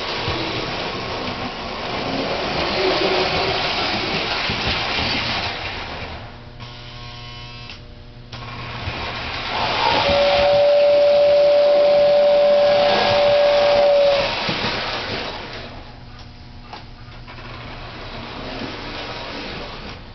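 Lionel 675 O gauge toy steam locomotive running on three-rail tinplate track, a steady mechanical rumble of motor and wheels that grows louder and quieter as it circles. About ten seconds in, the 2466W tender's whistle sounds one steady tone for about four seconds.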